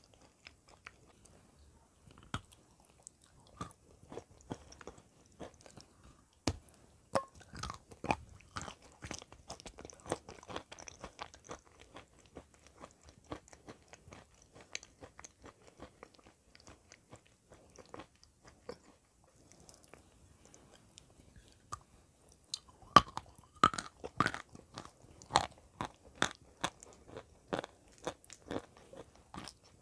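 Close-miked biting and chewing of dry white clay chunks: crisp crunches at irregular intervals, growing thicker after a few seconds, with the loudest run of bites near the end.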